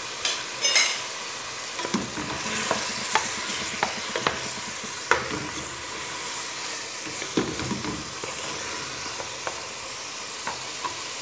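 Onion, chicken pieces and tomato paste sizzling in butter and oil in a pot, stirred with a wooden spoon that knocks against the pot at irregular moments. The tomato paste is being fried to cook off its acidity.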